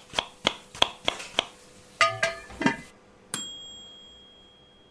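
Short closing music jingle: a quick tapping beat about three strokes a second, a few plucked notes about two seconds in, then a single bright bell-like ding that rings out and fades.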